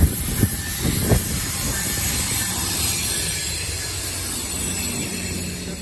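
MARC MP36PH-3C diesel locomotive (EMD 16-645 prime mover) running past close by with its bi-level passenger cars, a steady engine hum under the high hiss of wheels on rail. A few sharp knocks of wheels over rail joints come in the first second or so.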